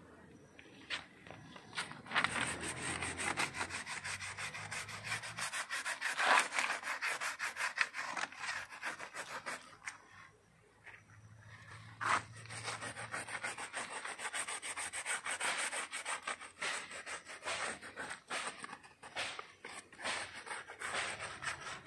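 Coconut-fibre (coir) pad scrubbing a bark-protectant coating onto a rubber tree's renewed bark in fast, repeated rubbing strokes, pausing briefly about ten seconds in.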